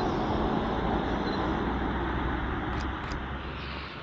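Road traffic: a heavy vehicle passing, with a steady low engine drone under tyre noise, fading away towards the end.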